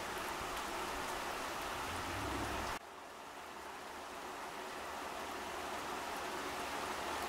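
Steady rain falling on plants and foliage, an even hiss. The level drops suddenly about three seconds in, then slowly builds back up.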